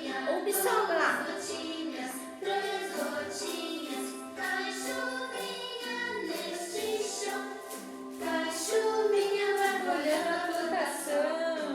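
A children's song with voices singing together over instrumental backing.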